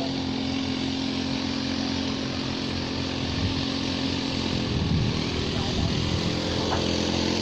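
Rice combine harvester's engine running steadily under way.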